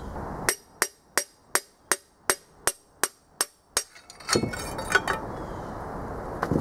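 About ten sharp hammer blows, roughly three a second, driving a seized piston out of the bore of a corroded Chevy 305 cast-iron block. A metallic clatter follows as the piston and connecting rod come loose.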